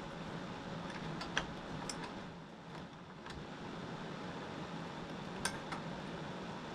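Steady hum of small space heater fans, with a handful of light metallic clicks and taps from a wrench being worked on a transmission line fitting a little at a time.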